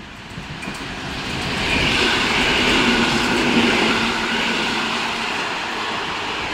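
EP07 electric locomotive hauling a passenger train passing close: the rush of wheels on rail builds from about a second in, peaks with a steady whine on top as the locomotive goes by, then settles into the even rumble of the coaches rolling past.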